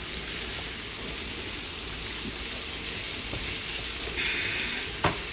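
Seasoned chicken pieces sizzling in hot oil in a frying pan, a steady hiss. The sizzle grows louder for under a second about four seconds in, and a single sharp click, likely a utensil on the pan, comes near the end.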